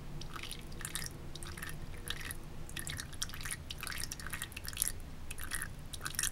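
Thin stream of water trickling from a bathroom faucet into the sink, with irregular, quick splashes and drips.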